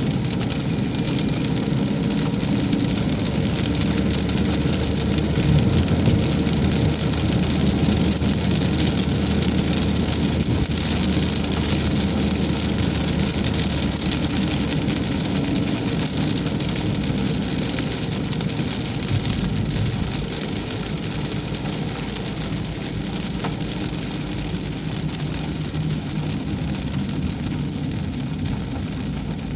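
Heavy rain falling steadily, with a car's engine and road noise running underneath; the low engine hum shifts and eases a little about two-thirds of the way through.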